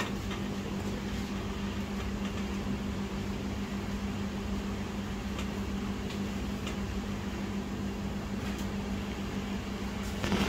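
Steady hum of a fan-type electric motor, with a constant low tone. A few faint ticks come through, and a short cluster of clicks near the end.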